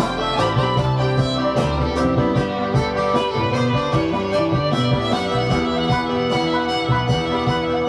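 Instrumental country-folk music led by fiddle over acoustic guitar, with a steady beat and no singing.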